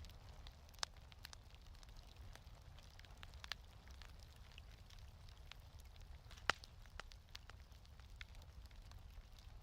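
Quiet wood fire crackling, with scattered sharp pops over a steady low rumble; the loudest pop comes about six and a half seconds in.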